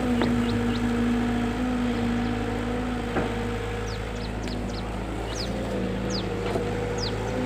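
Excavator engine running steadily, its pitch shifting slightly about halfway through, with birds chirping in short high calls during the second half.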